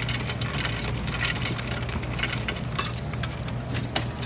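Steady low hum of a car running, heard inside the cabin, under crackling rustles as a straw is unwrapped and handled over a foam cup's lid. A sharp click comes near the end.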